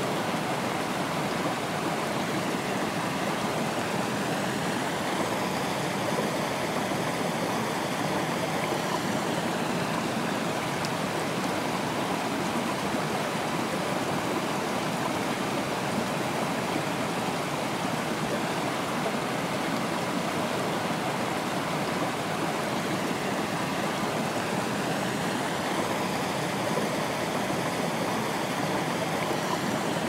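Mountain stream spilling over small rock ledges in low cascades: a steady rush and splash of running water.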